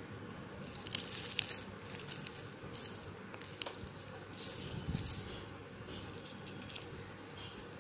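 A slate pencil crushed and crumbled between fingertips into powder: soft, gritty crunches in several short bursts, the strongest about a second in and again around five seconds, with small crackling ticks between.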